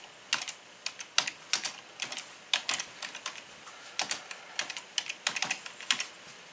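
Typing on a computer keyboard: a run of uneven, sharp keystroke clicks, a few a second.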